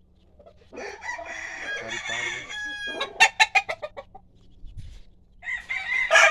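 Gamecock roosters crowing: one long crow about a second in, followed by a quick run of clucks, then another crow starting near the end.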